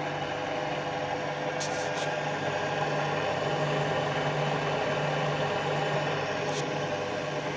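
Drill press motor and spindle running steadily at speed, a steady hum under a noisy whine.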